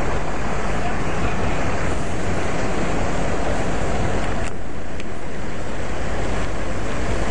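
Steady, loud rushing din of fire engines running their pumps while hoses spray water, with no clear single event; it goes briefly duller for about half a second around four and a half seconds in.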